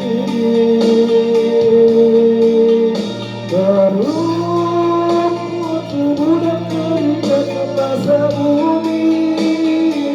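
A song with a voice singing long held notes over guitar accompaniment.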